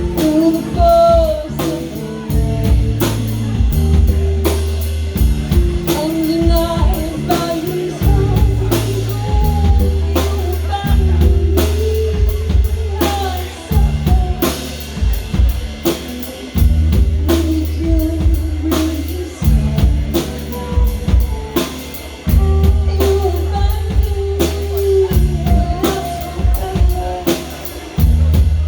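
A band playing a song: a drum kit keeping a steady beat, bass guitar holding low notes that change every second or two, guitar, and a singer's voice carrying the melody over the top.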